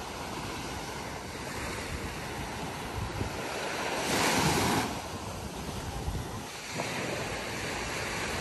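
Surf washing onto a sandy beach, with wind rushing over the microphone; a louder surge of breaking water comes about four seconds in.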